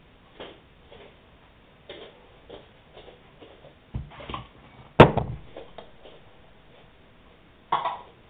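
A few scattered clunks and knocks from handling hard objects, the loudest a sharp bang about five seconds in.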